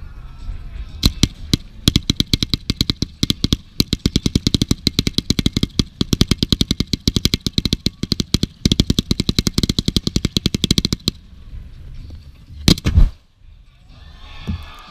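Fireworks going off in a rapid volley of sharp bangs, several a second, from about a second in for some ten seconds, followed by two louder single bangs near the end.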